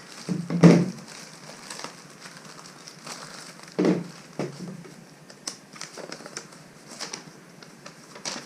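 Packaging being handled: crinkling and rustling with scattered clicks and knocks, loudest about a second in and again near four seconds.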